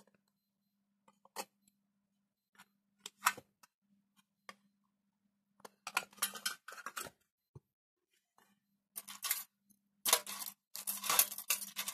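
Small metal tools clinking and rattling in a tin tool box as they are rummaged through: a few separate clicks at first, then busier bursts of clatter about six seconds in and again near the end.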